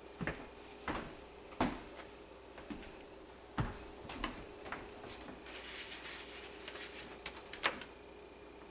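Scattered knocks and clacks of kitchen containers and utensils being handled and set down on a counter, with a couple of seconds of rustling about two-thirds of the way through.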